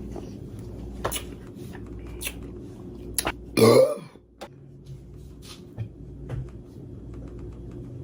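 A woman's single short burp about three and a half seconds in, preceded by a few faint clicks.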